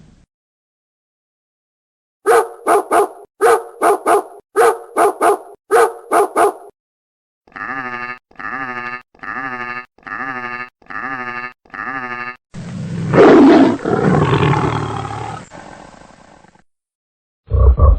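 A string of animal calls. First come about eleven short, sharp calls in quick groups of two or three, then six evenly spaced pitched calls, then one loud roar-like call of about four seconds that fades out.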